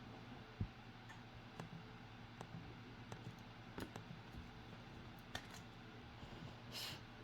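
Faint scattered clicks and light knocks over a low steady hum, with one louder knock about half a second in and a brief hiss near the end.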